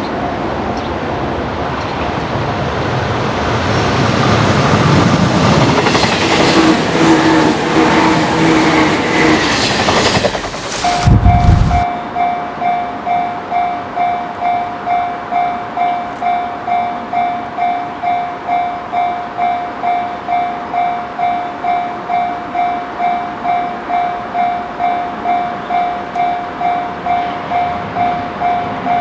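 JR 485-series electric limited express passing: its running noise builds over several seconds to a loud rush with a low buffeting rumble about eleven seconds in. Then, after a cut, a railway level-crossing warning bell rings steadily about twice a second, the signal that a train is approaching.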